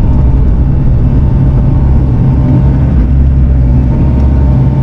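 Diesel engine of a Bobcat T650 compact track loader running steadily at working speed while it moves dirt.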